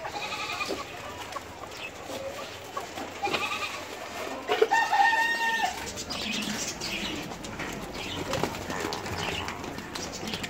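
Young male goats bleating in a crowded pen, and a rooster crowing once, one long call about halfway through.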